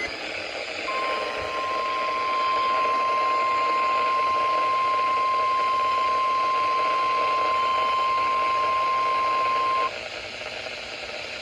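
National Weather Service 1050 Hz warning alarm tone from a weather radio: one steady high tone held for about nine seconds, then cutting off abruptly. It is sounded as the weekly test of the tone that switches on alert receivers. It comes through the receiver's speaker over constant radio static, which carries on after the tone stops.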